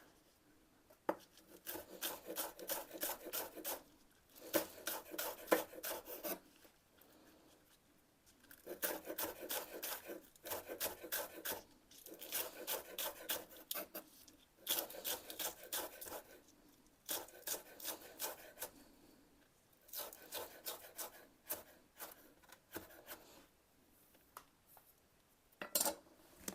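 Sliced cucumber in dressing being shaken hard in a lidded container: bursts of quick rattling strokes, each a second or two long, with short pauses between.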